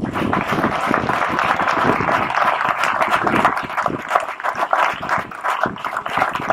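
Wedding guests applauding, dense clapping that breaks out as the couple kiss after being pronounced husband and wife.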